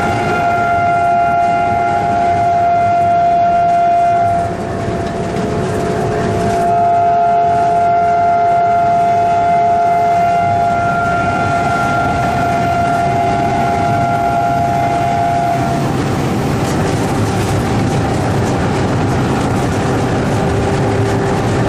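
WDM-2A diesel locomotive's air horn sounded in two long blasts, one of about four seconds and then one of about nine seconds after a short break, heard from inside the cab over the steady running noise of the engine and wheels. After about sixteen seconds the horn stops and only the running noise remains.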